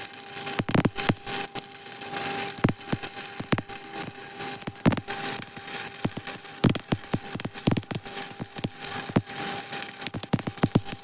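Electric arc welding: the arc crackles and spits irregularly over a steady hiss, with a faint steady whine underneath.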